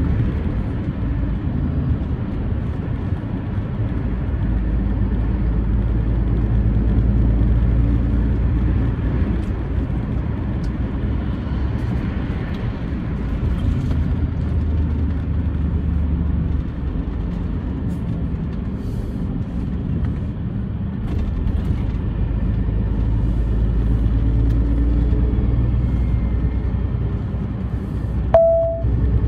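Truck engine and road rumble heard from inside the cab while driving along a dual carriageway, swelling and easing slowly with speed. A short beep sounds near the end.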